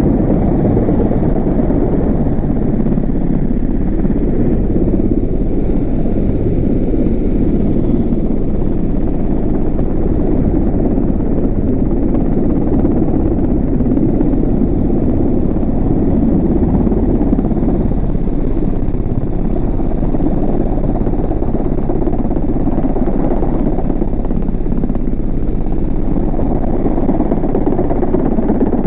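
Helicopter running on the ground at close range, its turbine and rotor making a loud, steady noise with a heavy low rumble that does not change.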